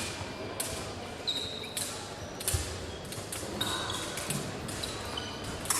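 Épée bout in action: sharp clicks and knocks of the steel blades meeting, several leaving a short high metallic ring, mixed with the fencers' feet stamping and sliding on the piste.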